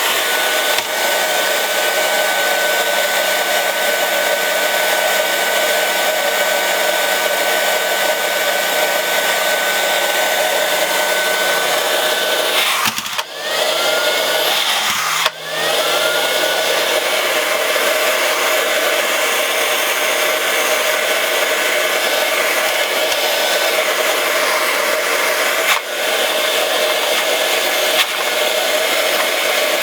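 Suction fan motor of an iCLEBO O5 robot vacuum running steadily under load: a loud, even blower rush with a steady whine. About 13 and 15 seconds in, the sound dips sharply for a moment and comes back with a rising whine.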